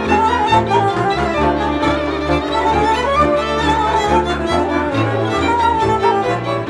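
Folk string band playing a dance tune: fiddles carry the melody over a bowed double bass sounding low notes in regular strokes.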